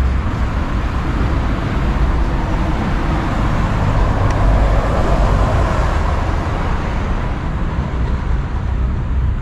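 Road traffic: steady road noise with a low rumble, and a vehicle passing that swells about halfway through and then fades.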